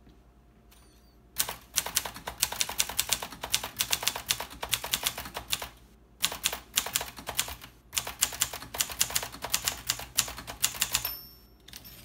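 1955 Groma Kolibri portable manual typewriter being typed on quickly: a fast clatter of type bars striking the platen, starting about a second and a half in, with two brief pauses. Near the end the typing stops and the margin bell gives a short ring.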